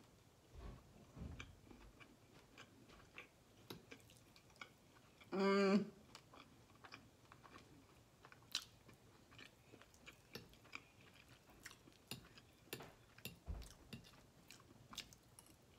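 Close-miked chewing and biting of breakfast food, with many small wet mouth clicks, and a short hummed "mm" about five seconds in.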